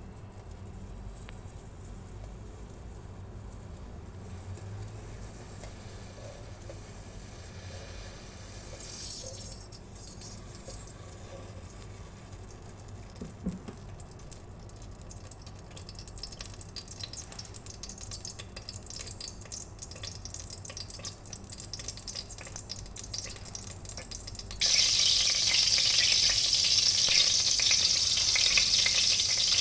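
Faint low hum with light crackling, then near the end a sudden loud, steady sizzle as chicken starts frying in a pan.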